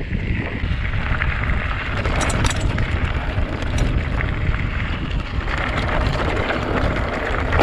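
Wind rushing over an action camera's microphone as a mountain bike rolls down a rocky trail, with the bike's frame and gear rattling over the stones; a few sharper rattles come about two seconds in and again near four seconds.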